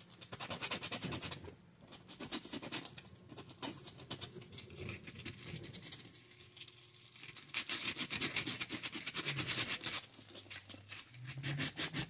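Fast back-and-forth rubbing of a small sanding stick on the edge of a cured resin casting, a quick run of scratchy strokes with a couple of brief pauses, smoothing the edge so it no longer cuts.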